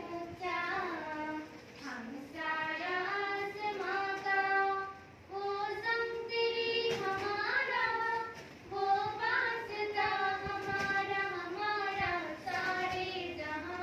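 A young girl's voice singing a slow melody with long held notes, pausing briefly between phrases.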